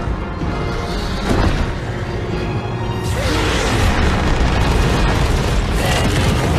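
Dramatic film music mixed with heavy booms and blasts of fire as a dragon breathes flame.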